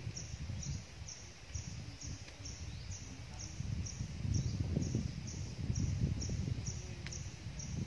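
Outdoor ambience: a short, high chirp repeating evenly a little over twice a second, with a low, uneven rumble that swells and fades in the middle.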